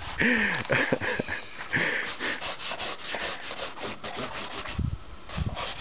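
Wood being hand-sanded with rapid, even back-and-forth strokes.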